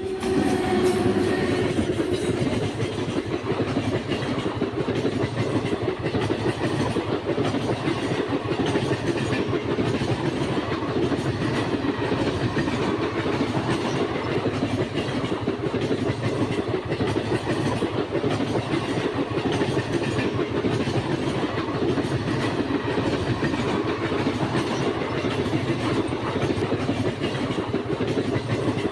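Passenger train running at high speed: a loud, steady rumble of wheels on rails with a rapid clickety-clack. It comes up sharply at the start and then holds steady.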